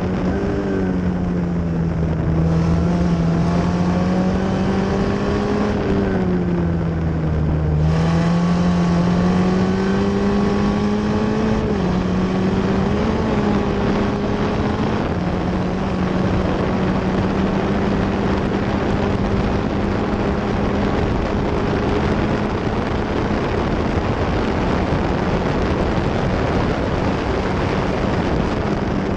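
Formula F1600 open-wheel race car's 1.6-litre four-cylinder engine running hard on track, with wind rushing over the onboard microphone. The engine note falls from about five to eight seconds in, climbs again, dips briefly near twelve seconds, then holds fairly steady at high revs.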